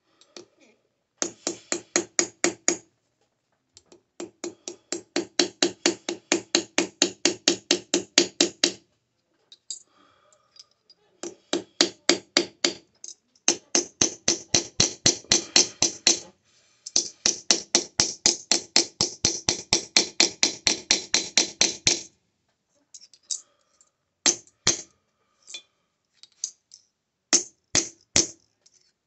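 Hand hammer forging a sterling silver bar, striking about four times a second in runs of several seconds broken by short pauses, each blow with a short metallic ring.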